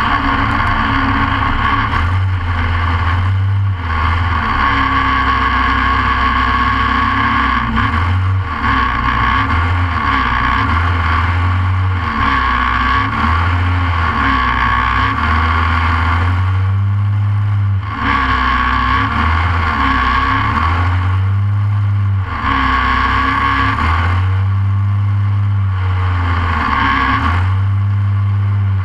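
Short course off-road kart's Briggs & Stratton racing engine running hard, revving up and dropping back every second or two as the throttle is worked through the course, heard close up from inside the kart's cockpit.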